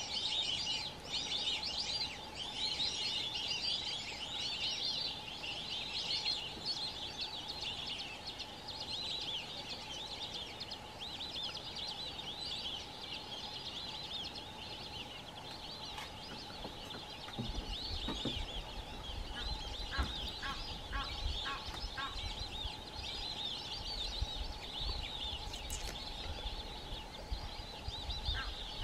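A flock of white-faced whistling ducks calling constantly: many short, high, overlapping whistles making a steady chatter. About halfway through, a low rumble comes in underneath.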